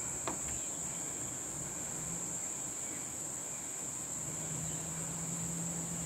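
A steady, high-pitched insect chorus drones without a break. About a quarter second in there is one brief sharp sound that slides quickly downward.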